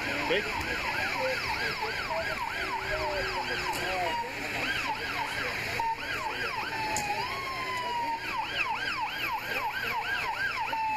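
Emergency vehicle siren in a fast yelp, about three rising-and-falling sweeps a second, breaking off briefly a couple of times. A second, slower siren tone glides upward about halfway through.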